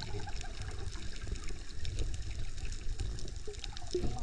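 Underwater water noise: a steady low rumbling wash with faint scattered clicks and crackles.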